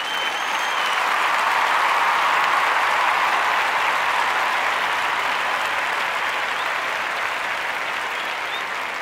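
Audience applauding: dense clapping that swells over the first couple of seconds, then slowly fades.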